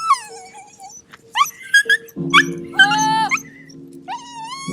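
Sled dogs whining and yelping in high calls that rise and fall, several short ones in quick succession and a longer drawn-out whine about three seconds in. A steady low music chord comes in about two seconds in.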